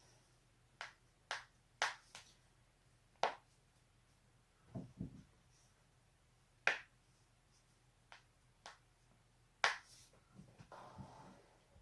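Knee joints cracking: about eight sharp, separate pops at uneven intervals. There are two duller, lower knocks about five seconds in and a brief rustle of movement near the end.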